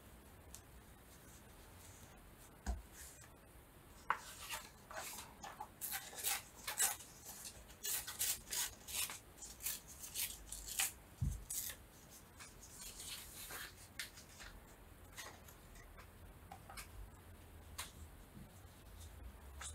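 Paper being handled and torn: a dense run of crisp rustles and rips from about four to twelve seconds in, then scattered lighter rustles, with one dull thump just after eleven seconds.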